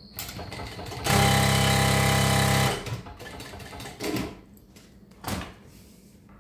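ProSew PS-1933B industrial walking foot sewing machine running at speed for about a second and a half, starting about a second in, as a steady hum of rapid needle strokes. Two short knocks follow, about a second apart.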